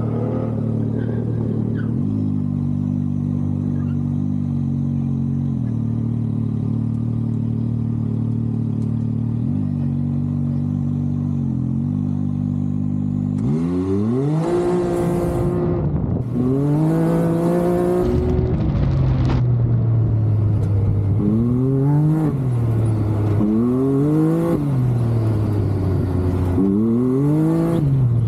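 Can-Am Maverick X3's turbocharged three-cylinder engine idling steadily, then revving hard on launch about halfway through, its pitch climbing and falling again and again as it accelerates and backs off between the cones.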